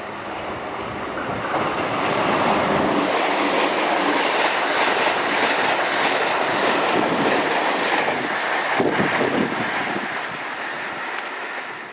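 JR Kyushu 787 series electric limited express passing through a station at speed: a swelling rush of wheels on rail with a rhythmic clatter as the cars go by, then fading as the train moves away.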